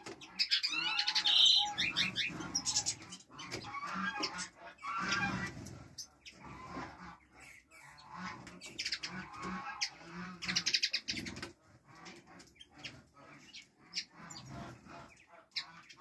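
A flock of small finches and sparrows chirping and calling, with bursts of chirping about a second in and again around ten seconds in, among short clicks and wing flutters. A lower, pulsing sound runs underneath.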